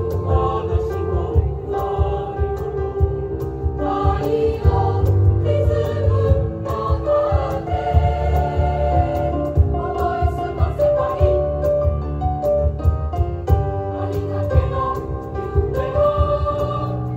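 Mixed choir of male and female voices singing in harmony, with sustained chords that shift from note to note.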